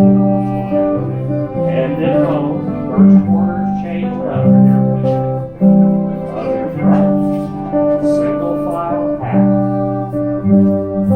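Small acoustic folk ensemble of fiddle, recorder, bouzouki and guitar playing an English country dance tune, with plucked strings carrying a changing bass line under sustained melody notes.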